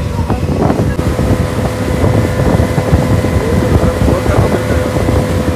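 Mercury 40 hp speedboat engine running under way, a steady whine over a dense rumble of wind buffeting the microphone and water rushing past the hull.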